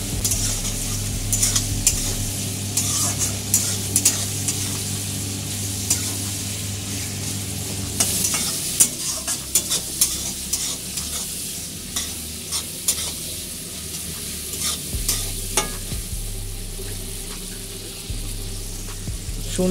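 Prawns and sliced onions sizzling in hot mustard oil in an aluminium kadai, with a spatula scraping and clicking against the pan as they are stirred, over a steady low hum.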